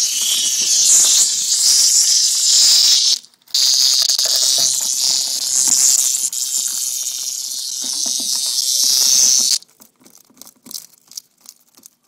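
Cicada screaming, a loud high buzz that breaks off briefly about three seconds in and then cuts off suddenly near the end. Quick irregular clicks follow: a hedgehog crunching on the cicada's hard shell.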